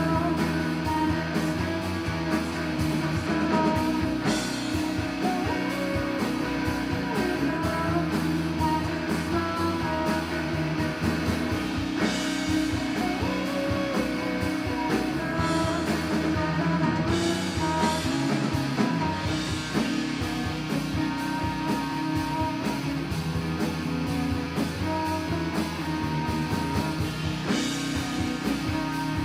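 Rock band playing: guitar lines over bass and a steady drum beat, with no singing in this stretch.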